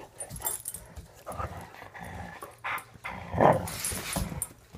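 Dogs play-fighting, making short, irregular bursts of dog noise, the loudest about three and a half seconds in.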